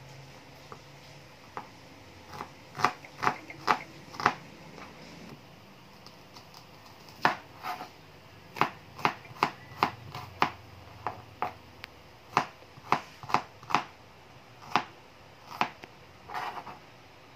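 Kitchen knife slicing a red onion on a plastic chopping board: sharp taps of the blade striking the board, in short irregular runs of a few cuts with pauses between.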